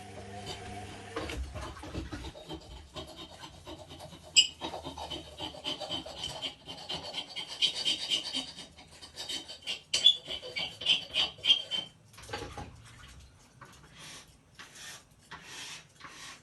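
Zanussi Lindo 100 washing machine's drum turning the laundry during the wash, an irregular rubbing, scraping swish of wet clothes tumbling. It thins out to occasional strokes after about twelve seconds.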